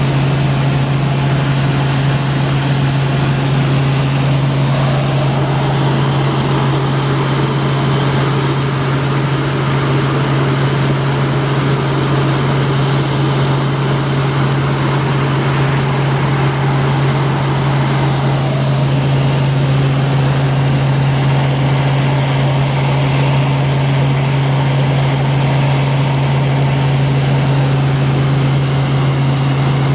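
Helicopter in steady forward flight heard from inside the cabin: a constant low hum from the rotor and engine over a broad rush of air noise.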